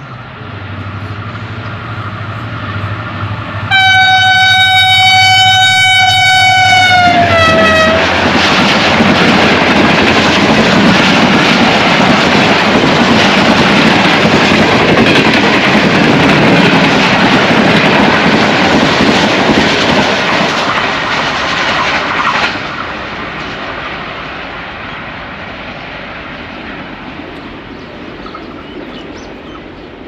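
A diesel locomotive hauling an express passenger train through a station at speed. It sounds one long horn blast, which drops in pitch as the locomotive goes by. Then comes a loud steady rush and clatter of the coaches' wheels on the rails for about fifteen seconds, fading away as the train leaves.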